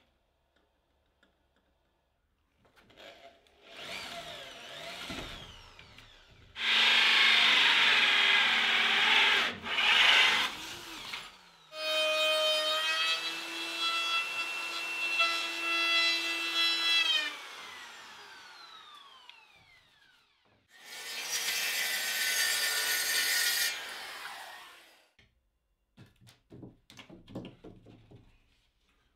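Electric saw cutting OSB board in several bursts, the motor whining at a steady pitch and then winding down with a falling whine after one cut. Scattered light knocks and clicks near the end.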